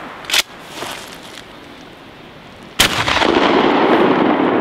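12-gauge shotgun firing slugs: a sharp report just after the start and a louder one about three seconds in, followed by a loud lingering noise.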